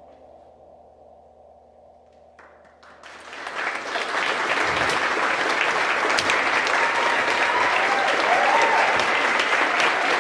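A low, steady drone dies away, and about three seconds in an audience bursts into applause. The applause swells within a second and carries on, with a few cheers rising above it.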